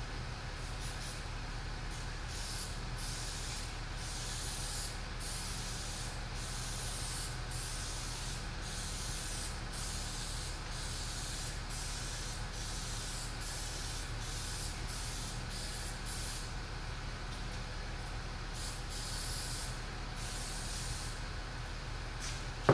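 Aerosol can of 3M 77 spray adhesive hissing in many short bursts, with a few longer sprays near the end, as it is sprayed over the poker table's padded top.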